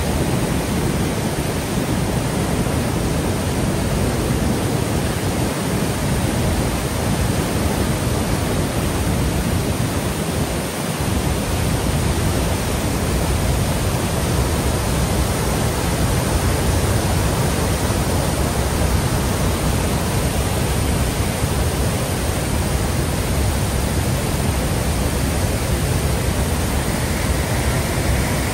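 Reedy River falls in flood: a loud, steady rush of swollen brown floodwater pouring over the rocks after Hurricane Helene's rains.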